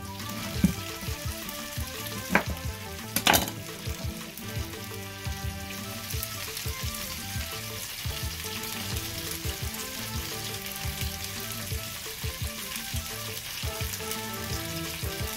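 A hand-turned seasoning grinder cracking grains over a salad plate, a steady gritty crackle, with a few sharp clicks in the first few seconds. Background music plays underneath.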